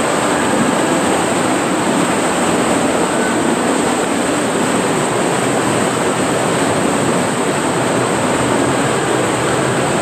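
Loud, steady rush of turbulent whitewater churning through a wild-river water slide channel, heard from right at the water's surface.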